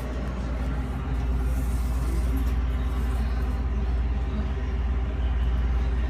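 Steady low rumble and hum of a Metalfrio commercial reach-in refrigerator running, its compressor and fans on, growing slightly stronger about a second in.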